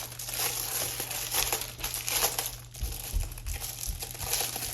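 Packaging crinkling and rustling as it is handled and opened, with a few soft low bumps about three seconds in.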